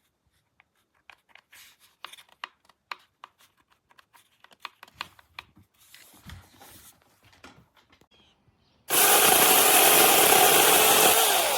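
Scattered light clicks and knocks of handling, then about nine seconds in a small battery mini chainsaw starts suddenly and runs loud and steady.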